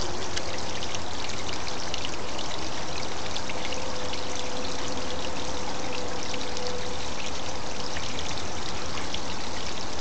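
A small waterfall trickling down a rock face: a steady rush of falling water with constant small splashes.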